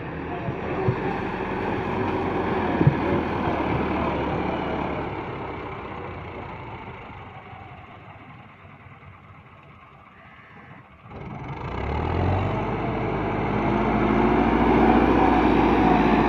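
Massey Ferguson 385 tractor's four-cylinder diesel engine running steadily under load as it works soil. A couple of sharp knocks come about one and three seconds in. The engine fades low for a few seconds in the middle, then comes back loud and close about eleven seconds in.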